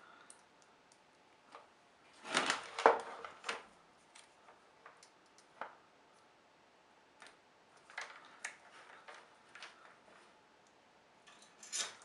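Small clicks and rattles of multimeter test leads and probe tips being handled and pushed onto a wiring harness connector, with a louder patch of clatter about two to three seconds in and another near the end.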